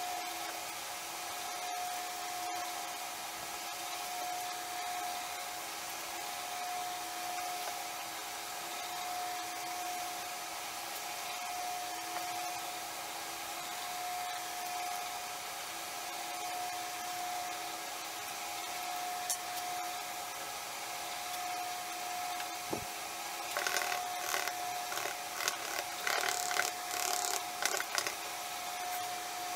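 A steady machine hum with a constant tone throughout. From about 23 seconds in, a wooden craft stick scrapes and taps against a plastic cup in a quick run of short strokes as epoxy resin is stirred.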